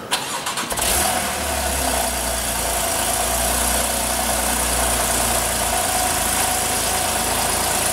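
Porsche 911 (991) Carrera 4's flat-six being started: the starter cranks briefly, the engine catches about a second in with a short flare, then settles into a steady idle.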